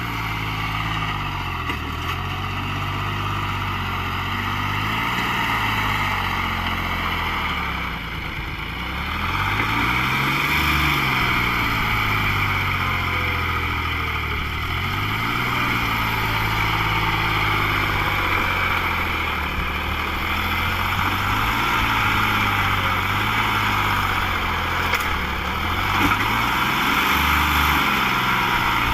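John Deere 5103 tractor's three-cylinder diesel engine running, its revs rising and falling again and again.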